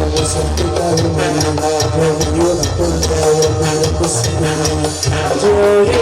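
Instrumental cumbia passage from a band, with bass, a melody line and steady percussion including maracas.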